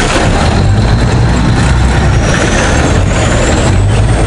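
River ferry's engine running steadily with a low hum, under a dense steady rush of noise.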